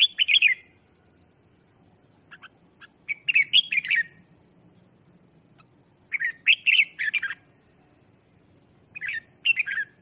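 Red-whiskered bulbul singing: four short warbling phrases, one about every three seconds, with two brief single notes before the second. This is the decoy bird's song used to call in other bulbuls.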